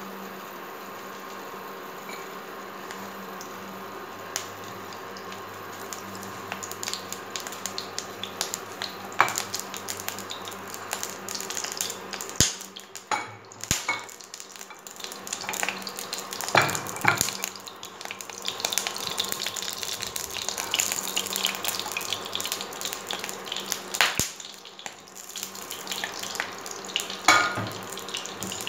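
Oil heating in an empty nonstick frying pan on an electric hob: at first only the hob's steady hum, then from about six seconds in the oil starts to crackle and pop, the spattering growing busier as the pan gets hot.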